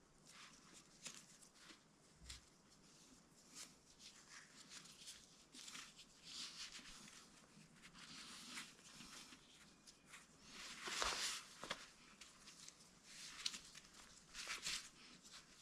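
Faint handling noise of a lace being worked through a running sandal's straps: scattered light rustles and ticks, with a louder run of scraping about two-thirds through.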